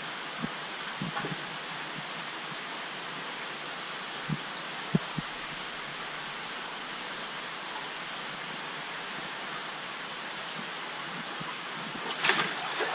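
A steady rush of flowing water, with a few soft knocks and a brief splashy burst near the end.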